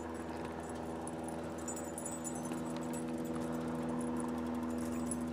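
Light metallic jingling and ticking from a dog's tags and leash hardware as the dog trots beside a slow-moving bicycle, over a steady hum with a few held pitched tones.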